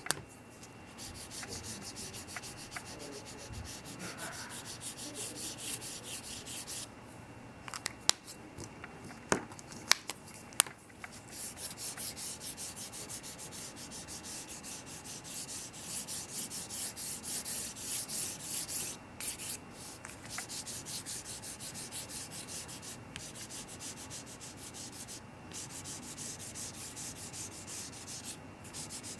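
Felt tip of a Crayola washable marker scratching across paper in quick back-and-forth colouring strokes. It comes in several runs broken by short pauses, with a few sharp clicks about a third of the way through.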